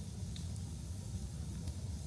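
Large wood fire burning with a steady low rumble and hiss, and a couple of faint crackles.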